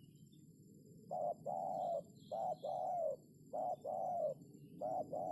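Spotted dove (terkukur) cooing: a short note followed by a longer, lower-arching one, the pair repeated four times at an even pace, starting about a second in.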